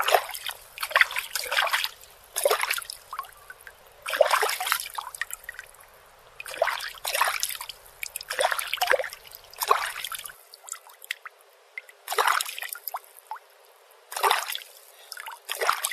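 Moving water splashing and trickling in irregular surges, each lasting under a second, with short quieter lulls between.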